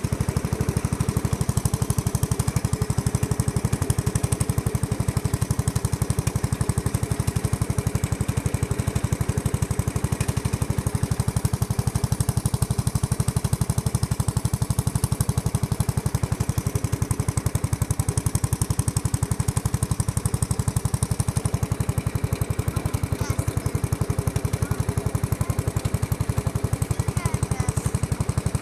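Small riding garden tractor's engine running steadily as the tractor drives across grass, with a fast, even pulsing beat.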